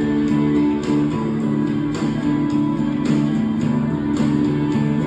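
Music with plucked, strummed guitar and held chords over a light steady beat.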